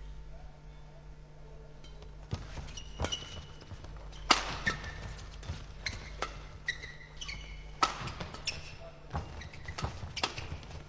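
Badminton doubles rally: sharp cracks of rackets hitting the shuttlecock in quick succession, starting about two seconds in, with short squeaks of shoes on the court floor between the hits.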